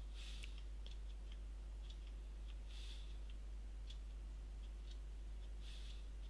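Quiet computer-mouse clicks and three short bursts of rapid ticking, about three seconds apart, like a scroll wheel being turned, over a steady low electrical hum.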